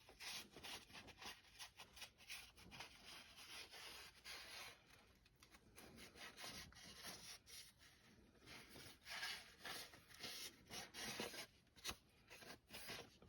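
Faint, irregular rubbing strokes: a rag wiping the pan gasket surface of a 4T65E automatic transmission clean.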